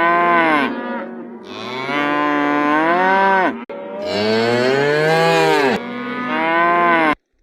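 Cattle mooing: about three long, loud moos one after another, cutting off abruptly near the end.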